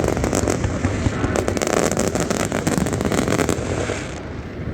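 Fireworks crackling and banging in rapid, dense succession over a continuous rumble, the crackle thinning out near the end.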